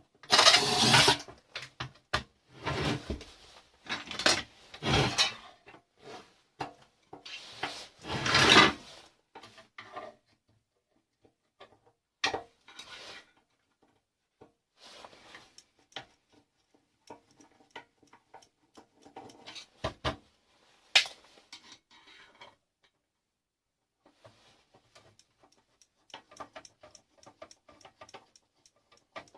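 Alarm system controller box being taken apart by hand: four loud scraping strokes in the first nine seconds, then scattered clicks, taps and rattles of small plastic and metal parts.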